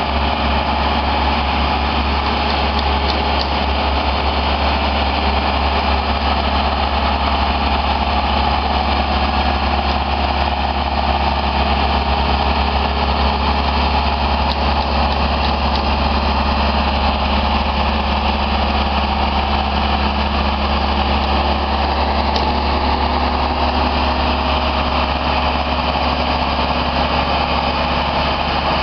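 Genie S-80 telescopic boom lift's engine running steadily, powering the hydraulics as the boom is lowered and swung.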